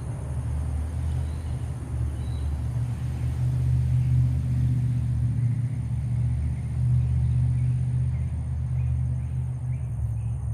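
Steady low rumble, with faint bird chirps over it.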